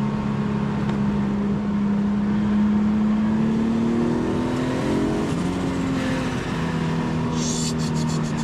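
Nissan Skyline GTT's RB25DETT Neo twin-turbo inline-six running under throttle, heard from the cabin: its note climbs, rises faster about four seconds in, then drops sharply after about five seconds as the driver lifts or shifts, and holds steady after. A quick run of sharp high clicks near the end.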